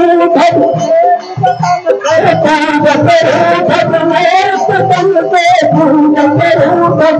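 Devotional music: a sustained melody with singing over steady hand percussion.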